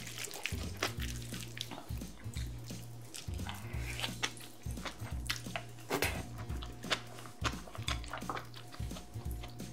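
Wooden spoon and chopsticks mixing bibimbap in a ceramic bowl: moist rice and vegetables squishing and crackling, with irregular clicks and scrapes of the utensils against the bowl.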